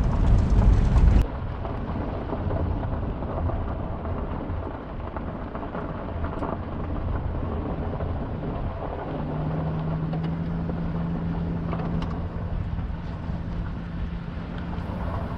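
A vehicle driving slowly on a gravel road, a steady low rumble of tyres and engine. It drops in level just over a second in, and a steady hum joins about nine seconds in as the vehicle picks up speed.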